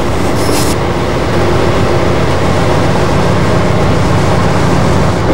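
Diesel freight locomotive running under way: a steady low engine drone mixed with wheel and rail noise and wind, with a brief hiss in the first second.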